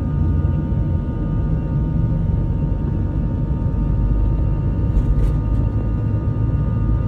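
Boeing 747 freighter's jet engines running, a steady low rumble with a few thin steady whining tones above it.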